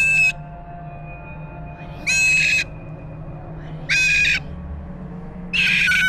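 A pet bird gives four loud, short calls about two seconds apart, each a fraction of a second long and ending on a slight upturn in pitch.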